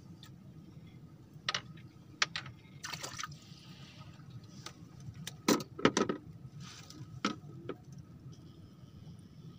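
A small hooked fish splashing at the water's surface as it is reeled in: a run of short, sharp splashes, the loudest cluster about halfway through.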